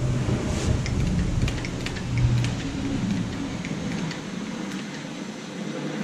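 Harbor Freight hand-pumped hydraulic cable crimper being worked to crush a copper lug onto a cable, giving scattered light clicks. Under it is a low rumble that thins out about four and a half seconds in.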